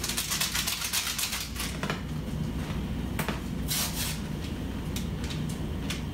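Kitchen counter handling sounds: a rapid run of small clicks and rustling for about two seconds, then a few scattered sharp clicks and a short scrape, over a steady low hum.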